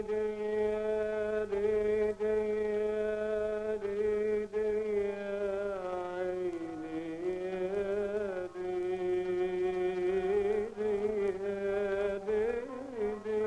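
Middle Eastern music: a long held note over a low steady drone that, about six seconds in, breaks into a wavering, ornamented melodic line.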